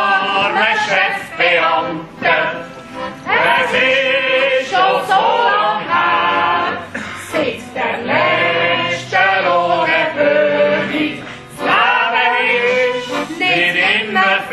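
A mixed group of men and women singing a yodel song together in chorus, with guitars and a tuba playing along underneath.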